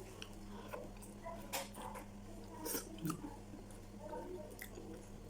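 A person chewing and biting food close to the microphone: scattered wet smacks and short clicks of the mouth, a few sharper ones about a second and a half in and near three seconds.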